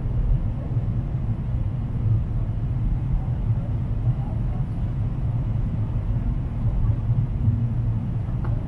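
Cabin noise of a Boeing 777-300ER in flight: a steady low rumble of engines and airflow.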